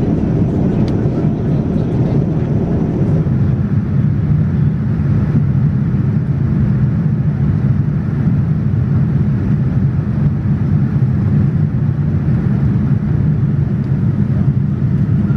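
Steady cabin noise of a Boeing 787-9 airliner in flight on its descent: an even rush of engines and airflow with a strong low hum, which grows a little stronger about three seconds in.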